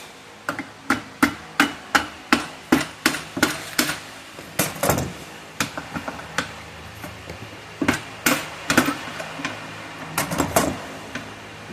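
Hammer blows on steel, about ten sharp ringing strikes at roughly three a second, then a few heavier irregular knocks and clatters. This is the bent die drawer of a damaged hydraulic hose crimper being knocked loose to free the crimping dies.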